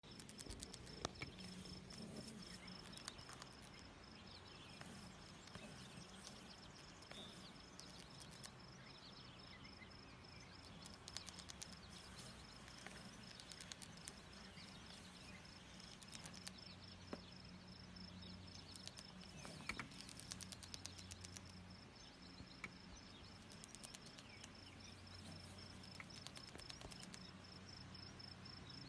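Faint insects trilling, a steady high-pitched pulsing chirr over near silence, with a few faint scattered ticks.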